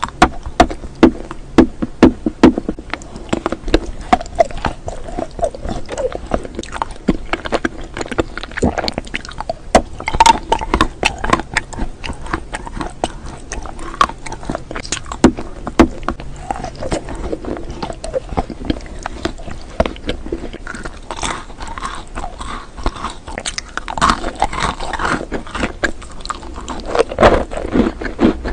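Close-miked biting and chewing of a spoon-shaped sweet: a quick run of sharp mouth clicks and smacks.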